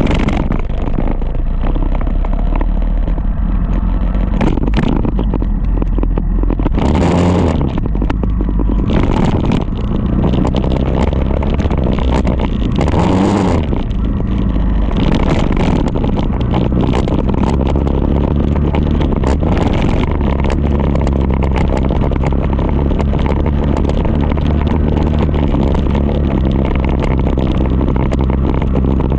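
Sport motorcycle engine running as the bike is ridden along a road, with rushing noise over it. Twice in the first half the engine note breaks briefly, then it holds steady.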